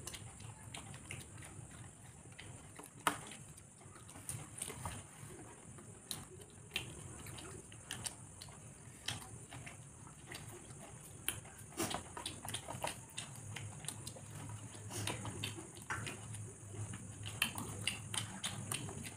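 Close-up eating sounds from two people eating by hand: wet chewing and mouth smacks with fingers scraping and tapping steel plates, many small irregular clicks. A faint steady high-pitched tone runs underneath.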